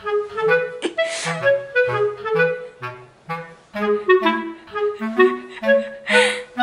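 Light, bouncy background music led by a clarinet over short low bass notes, with two brief hissing noises, about a second in and near the end.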